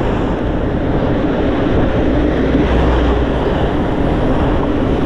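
Steady wind rush and road noise from riding a Super Soco CUx electric scooter at about 30 km/h in street traffic.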